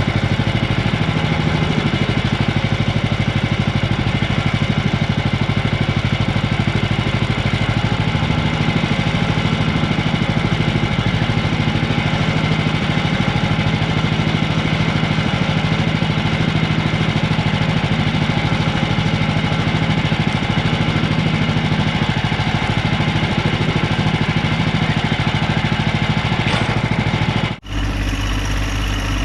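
Woodland Mills HM126 sawmill's gasoline engine running steadily. Near the end it cuts off abruptly and a lower, heavier engine sound takes over.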